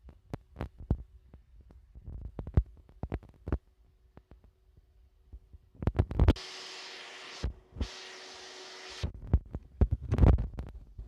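iRobot Roomba robot vacuum knocking and bumping repeatedly, with a steady whirring hiss from its motor for about three seconds in the middle, cut off briefly once, as it struggles to get onto a new carpet.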